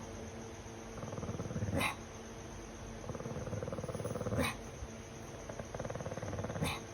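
Pug growling in three bouts that swell and each end in a sharp burst, about every two and a half seconds.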